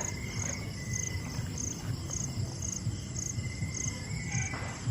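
Crickets chirping at night: an even train of high chirps, a little over two a second, over a faint steady background.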